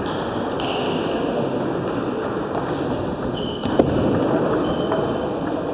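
Table tennis balls clicking off bats and tables in a large, echoing sports hall over a steady background din, with a few short high squeaks. One sharp click just under four seconds in is the loudest.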